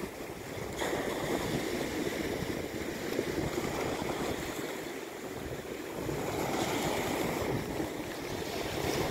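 Small waves washing over shoreline rocks, with wind buffeting the microphone; the rush swells and eases in surges.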